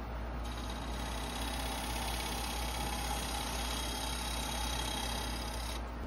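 Wood lathe and shop machinery running with a steady low hum. From about half a second in until near the end, a steady hiss with a faint whine sits on top as a bowl gouge cuts the spinning maple bowl, then stops abruptly.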